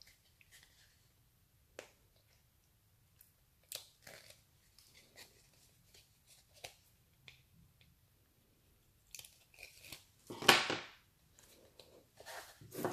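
Glued paper being pried and peeled loose with a pointed tool and handled: faint scattered crackles and scratches, then a louder tearing rustle about ten seconds in.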